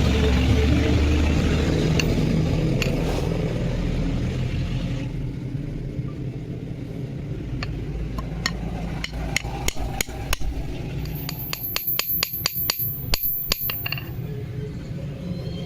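Hammer blows on metal: a few spaced strikes, then a quicker run of about four or five a second with a high metallic ring. Before them, a steady machine noise fades away over the first few seconds.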